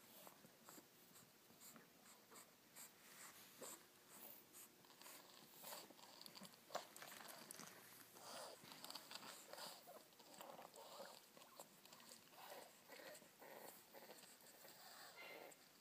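Faint sounds of French bulldog puppies moving about on a quilted bedspread: scattered scratches and rustles of small paws on fabric, with the puppies' breathing noises. The rustling is busiest around the middle.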